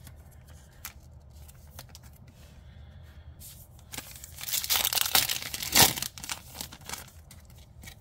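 Foil Otherverse Hidden Void booster pack crinkling in the hands and then being torn open, the loudest tear coming just before six seconds in.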